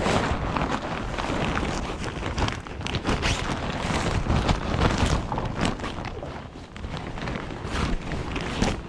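Strong wind buffeting the microphone: a gusty rumble and rush that swells and eases.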